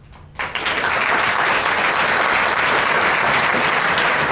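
Audience applauding. The clapping starts about half a second in and goes on at a steady level.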